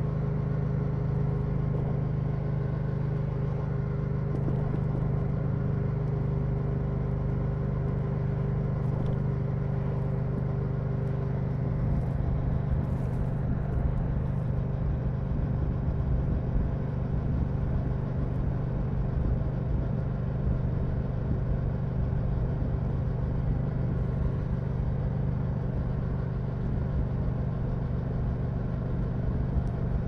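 Yamaha MT-07's parallel-twin engine running through an Akrapovic full exhaust at a steady cruise, an even low drone with no revving. About twelve seconds in, the deepest part of the sound grows a little louder and rougher.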